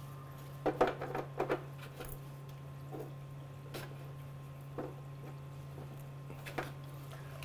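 Light plastic clicks and taps as a hole plug is pressed into a hydroponic garden's grow deck, over a steady low hum. The taps cluster in the first couple of seconds and come only now and then after that.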